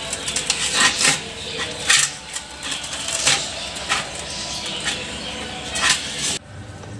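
Irregular clicks and knocks of wooden sticks striking a stainless steel vessel as they are pushed through a banana stem and shifted into place. The knocking cuts off suddenly near the end.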